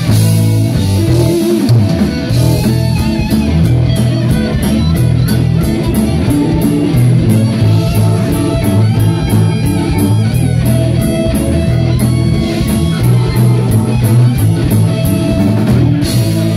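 Live band playing an instrumental passage with no singing: electric guitar over bass guitar and drum kit.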